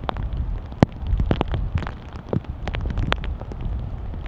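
Heavy rain, with drops striking the microphone as irregular sharp clicks over a steady low rumble.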